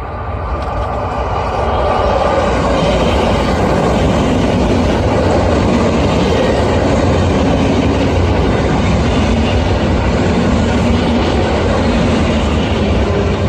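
A coupled EN57 and EN71 electric multiple unit train running past at speed. The rail noise grows louder over the first couple of seconds, then stays loud and steady, and a faint steady tone comes in near the end.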